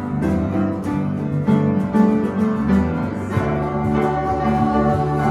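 A small band playing a worship song together: piano and electric bass guitar with a strummed acoustic string instrument.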